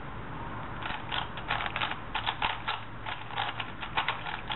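Plastic 4x4x4 puzzle cube being turned by hand, its faces and inner slices clicking and clacking in quick, irregular runs of moves starting about a second in.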